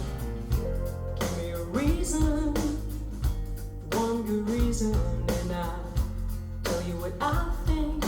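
A song with guitar, bass and drums, played back through Q Acoustics 3020 bookshelf speakers, with a steady beat.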